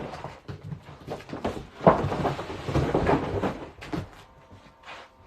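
Irregular knocks and rustling from cardboard toy packaging being handled and pulled apart, busiest in the middle with one sharp knock about two seconds in, then dying down.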